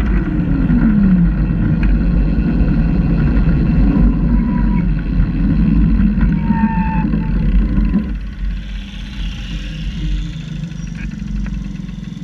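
Small supermileage car driving, heard through a camera mounted on its side: a steady low rumble with a tone that falls in the first second or so. It grows quieter after about eight seconds.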